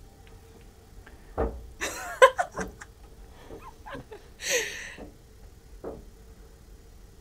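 A loose rope outside a ferry cabin's porthole slapping against the window: irregular knocks and thumps, the heaviest around one and a half to two seconds in, over a steady low hum.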